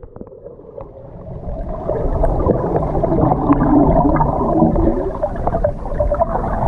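Water heard through a camera held under the surface of a swimming pool: muffled churning and bubbling as a swimmer does a front flip, building up about a second and a half in.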